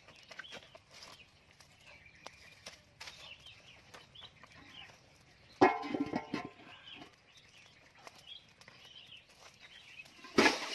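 Faint bird calls, short chirps scattered throughout, with one louder sudden sound a little past halfway and another right at the end.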